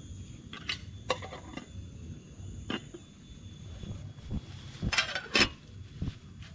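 Camp cookware being handled: scattered light clicks and knocks, with a louder clatter of clinks about five seconds in. A faint steady insect chirring runs underneath.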